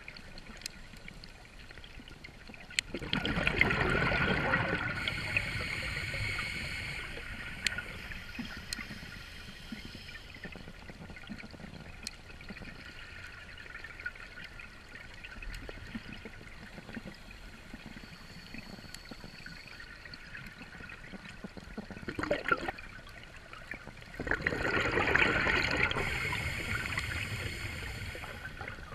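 Scuba regulator exhaust bubbles rushing and gurgling underwater in two bursts of a few seconds each, about twenty seconds apart, the sound of a diver breathing out.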